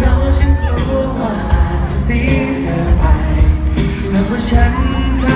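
Thai pop song performed on stage: a male singer with a handheld microphone over a backing track with heavy bass and a steady drum beat.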